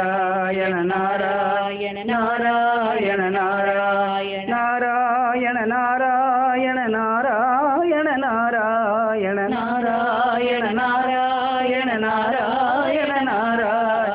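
Devotional namavali singing: voices chant the names of Krishna to a wavering, melodic Carnatic-style tune, with brief pauses about two and four and a half seconds in.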